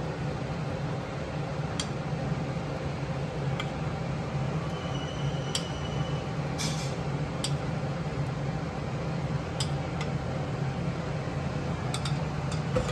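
A spoon and metal dishes clinking now and then as cooked khichdi is served into a lunch box, one clink ringing briefly about halfway through, over a steady low hum.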